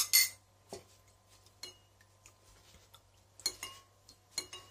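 Metal spoon clinking against ceramic dishes: a few sharp, separate clinks with a short ring, the loudest right at the start.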